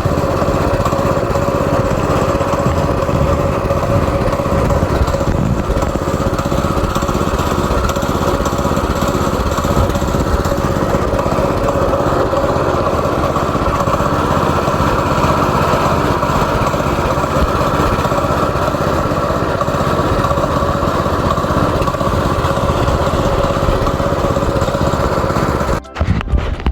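Single-cylinder Predator four-stroke engine on a go-kart running steadily on its newly fitted carburetor. The sound cuts off abruptly near the end.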